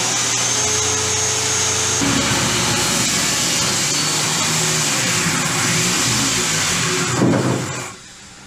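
Handheld circular saw running and cutting through the top of a wooden daggerboard trunk. Its note changes about two seconds in as the blade works through the wood. Near the end it rises briefly, then the trigger is released and the saw winds down to a stop.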